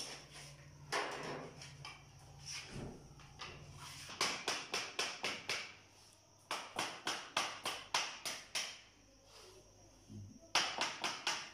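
Three runs of quick light taps, about five a second, with short pauses between them: a PVC wall panel being tapped lightly to seat its joint into the neighbouring panel.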